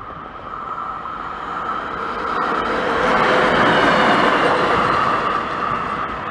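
Small yellow self-propelled rail maintenance vehicle passing close by. Its engine and running noise, with a steady whining tone, swells to a peak about four seconds in and then eases as it moves away.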